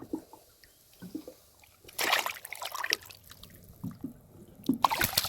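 Water splashing and trickling close by, mostly quiet with small drips, a louder splash about two seconds in and another near the end.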